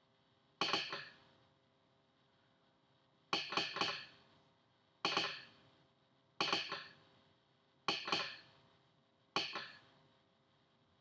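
Arduino-driven telegraph sounder clicking out Morse code, its armature snapping down and back in short groups of clicks that each ring briefly. Each group is one letter, here spelling "a giant", with pauses of one to three seconds between letters.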